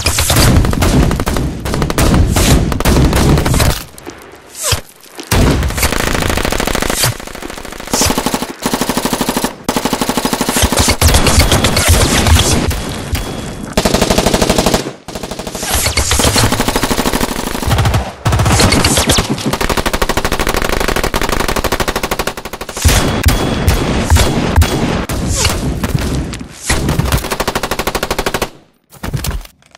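Automatic gunfire in long rapid bursts with short pauses between them.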